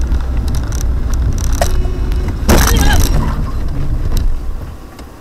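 A car driving, heard from inside the cabin: a steady low rumble of engine and road noise. About two and a half seconds in comes a loud, harsh burst lasting under a second, and the rumble drops off near the end.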